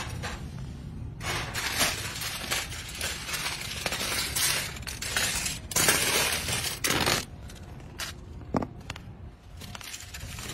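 Aluminium foil crinkling and crackling in bursts as it is pressed and wrapped around a motorcycle exhaust pipe, dying down in the last few seconds.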